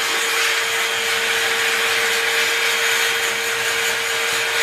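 Vacuum cleaner running steadily with its brush attachment, sucking dust off a home refrigerator's condenser. A constant rush of air carries a steady motor whine.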